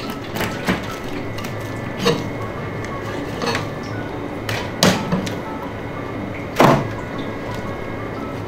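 Kitchen knife and fish knocking on a plastic cutting board during filleting: several sharp knocks at irregular intervals over a steady low hum.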